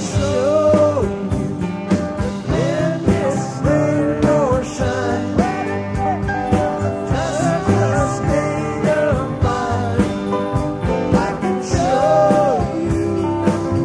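Rock music: a singing voice over guitar and band with a steady beat.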